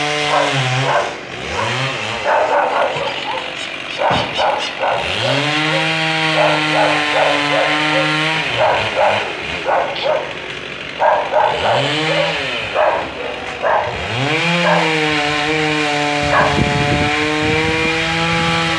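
Two-stroke chainsaw cutting up tree limbs, revving high, easing off to a lower note and climbing back up to full speed several times. Between the revs come groups of short sharp barks from a dog.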